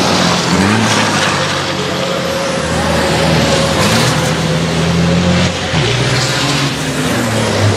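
Turbodiesel racing trucks running hard past the trackside. The engine note rises about half a second in, holds steady, dips briefly around five and a half seconds as the driver lifts through the curve, then rises again.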